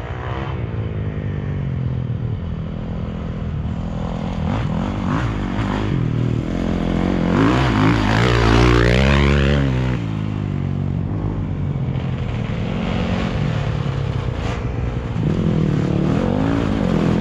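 Dirt bike engines running. About halfway through, an enduro motorcycle passes close by, its engine revving up and down and at its loudest. Near the end another dirt bike approaches and gets louder.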